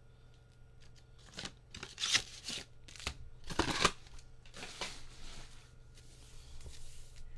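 Trading cards and a cardboard mega box being handled: several short scraping, sliding strokes over the first five seconds, then a faint rustle.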